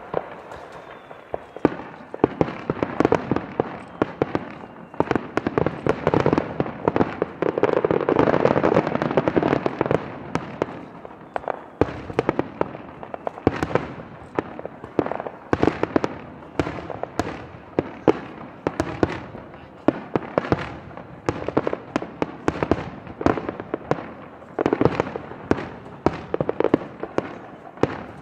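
Aerial fireworks bursting in a rapid barrage: dozens of bangs in quick succession, thickest about a third of the way in.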